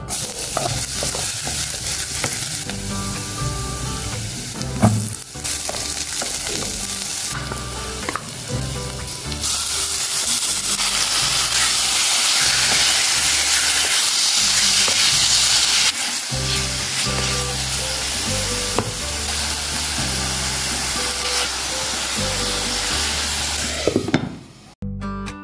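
Garlic and then chicken pieces sizzling in hot oil in an electric cooking pot, stirred and scraped with a wooden spatula; the sizzle is loudest for several seconds in the middle, after the chicken goes in. Near the end a glass lid is set on the pot and the sizzle drops away sharply.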